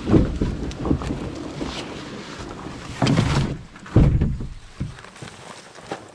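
Canoe carried through overgrown brush: the hull knocks against branches amid scraping and rustling of vegetation. There are several sudden knocks, the loudest about four seconds in.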